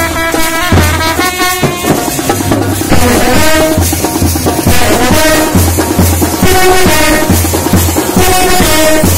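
Indian street brass band playing loudly: trumpets carrying a melody over a steady, repeating bass drum beat and snare drums.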